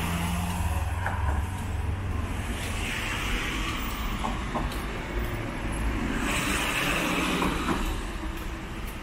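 Cars driving past close by on a wet road: a steady low engine rumble with tyre hiss that swells as vehicles go by, about three seconds in and again about seven seconds in.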